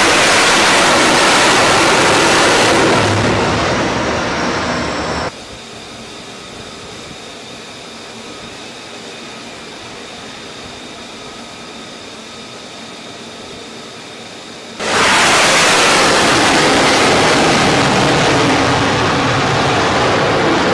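Loud jet noise from a carrier-landing F-35C's turbofan engine, easing off after about three seconds and then cut off abruptly. A much quieter stretch with a faint steady hum follows, then loud jet noise cuts in suddenly again and carries on.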